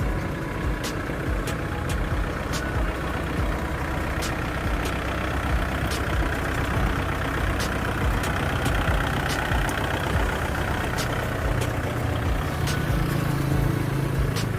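A motor vehicle's engine running steadily, with scattered light clicks and knocks over it; a steadier low engine hum comes in near the end.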